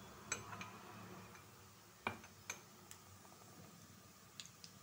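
Tempering spices (mustard seeds, urad dal, cumin) frying in hot oil in a kadai: a faint sizzle with scattered, irregular sharp pops and clicks as the seeds splutter, the loudest about two seconds in.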